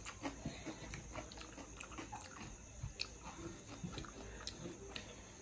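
Quiet eating sounds: soft chewing with scattered small mouth clicks and smacks.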